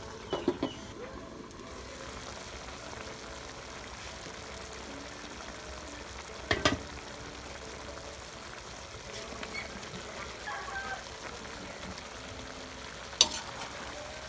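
Chicken and sauce simmering in a wok, a steady bubbling sizzle. A lid clanks on about half a second in, and sharp knocks of metal come about six and a half seconds in and again near the end.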